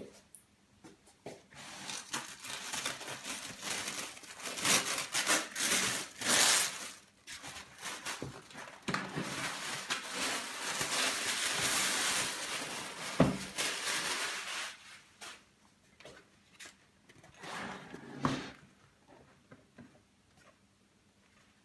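Thin paper wrapping being torn and crumpled off a cardboard box, with a long stretch of rustling and tearing. One sharp knock a little past the middle, then quieter rustles and the box being handled.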